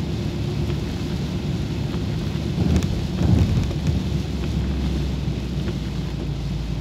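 Rain on a moving car and its tyres hissing on the wet road, heard from inside the cabin over the steady low hum of the engine, with a few low thumps about three seconds in.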